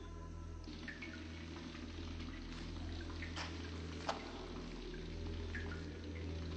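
Water dripping in a cave: scattered single drips, one sharper drip about four seconds in, over a low steady hum.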